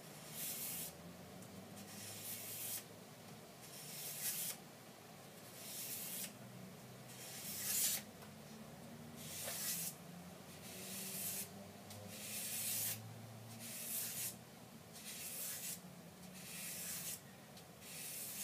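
Light strokes of a Buck knife blade across sandpaper backed by rubber, hand-sharpening: a dry, scratchy rasp about once every second and a half, a dozen or so strokes in all.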